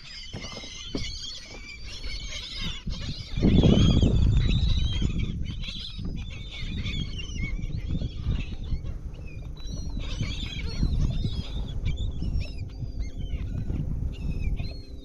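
A flock of seabirds calling over each other, many short rising-and-falling cries, as they feed over schooling fish. A loud low rush swells about three and a half seconds in under the calls.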